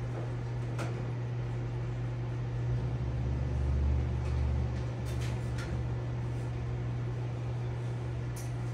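Steady low hum of a running aquarium pump, swelling deeper and a little louder around the middle, with a few faint ticks.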